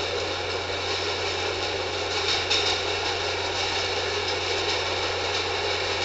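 Subway train running, heard from inside a passenger car as a steady dense noise, briefly louder about two and a half seconds in.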